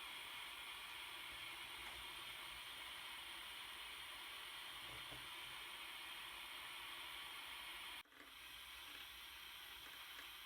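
Steady hiss from a Dremel soldering iron running. About eight seconds in it cuts out for an instant and comes back slightly quieter.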